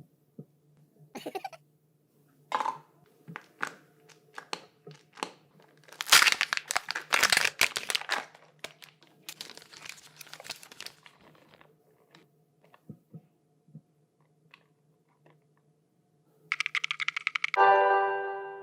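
Crinkling, crunching and tearing of wrappers and candy being handled, in scattered crackles with a denser burst about six to eight seconds in. Near the end a short chiming jingle sounds.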